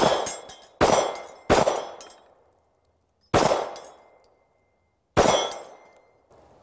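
Five shots from a Ruger MAX-9 9mm compact pistol hitting a steel reaction target: three in quick succession, then two more about two seconds apart. After the last two shots a high, clear ringing of the struck steel lingers for about a second. The last shot empties the magazine and the slide locks back.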